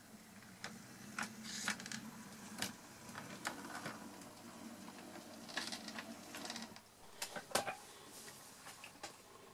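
Hornby Q6 OO gauge model steam locomotive running off a turntable: a low electric motor hum with sharp clicks as its wheels cross the rail gaps, and a couple of brief hissy rushes. The hum stops about seven seconds in.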